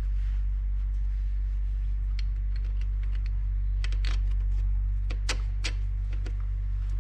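Nissan Prince Miler engine running with a steady low hum. Over a few seconds in the middle comes an irregular run of sharp metallic clicks and taps.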